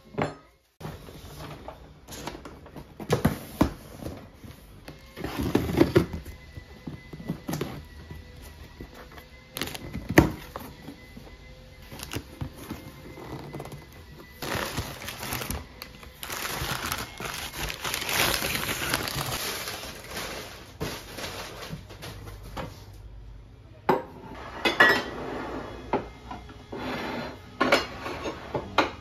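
Ceramic plates and bowls knocking and clinking as they are set down on a wooden tabletop. For a few seconds midway there is a longer rustle of crumpled packing paper being pulled from a cardboard box. Soft background music plays underneath.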